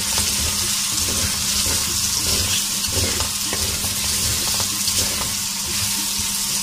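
Sliced taro (arvi) frying in hot oil in a metal kadhai, with a steady sizzle, while a wooden spatula stirs and scrapes the pieces and spices around the pan in irregular strokes.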